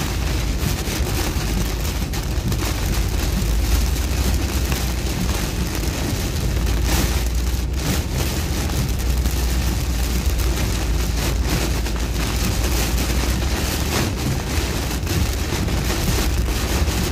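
Heavy rain hitting a moving car's roof and windshield, heard from inside the cabin, over a steady low rumble of tyres on the wet road.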